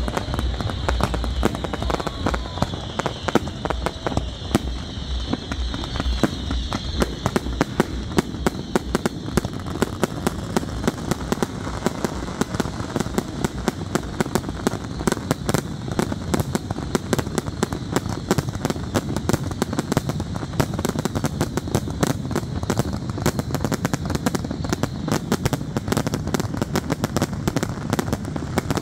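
Fireworks display going off without a break: a dense, rapid crackle of many pops and bangs a second from aerial shells and crackling comets, with a low rumble under it in the first few seconds.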